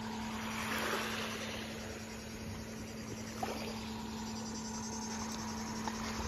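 Small sea waves lapping on a sandy shore, one wash swelling and fading about a second in, over a steady low hum.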